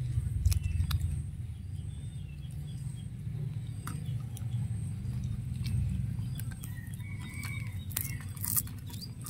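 A cat chewing and crunching fried fish, heard as scattered sharp clicks and crunches over a low steady rumble. A bird chirps briefly about seven seconds in.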